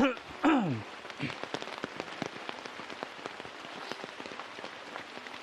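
Heavy rain, with a steady hiss and many sharp separate drop ticks on an umbrella. About half a second in, one short loud call sweeps down in pitch.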